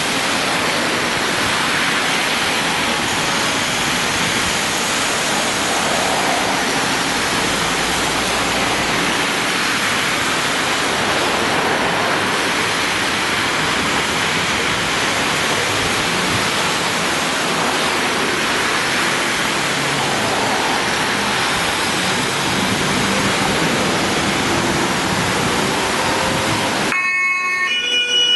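Steady hiss of rain and tyres on a wet road as a column of emergency vehicles drives past. Near the end it cuts suddenly to an emergency-vehicle siren sounding in stepped tones.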